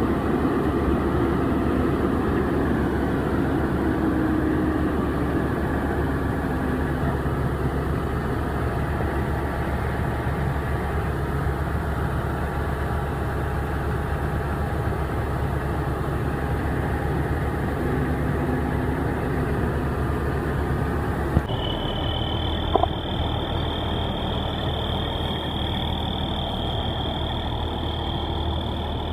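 Combine harvester running at work, heard from inside its cab, as its unloading auger pours grain into a grain trailer. About 21 seconds in it changes abruptly to a semi truck's diesel running at idle, with a steady high whine over it.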